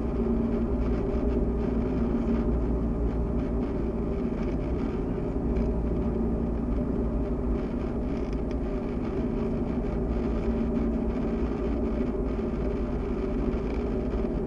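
A Cessna 172SP's four-cylinder Lycoming IO-360 engine and propeller running with a steady, unbroken drone, heard from inside the cockpit.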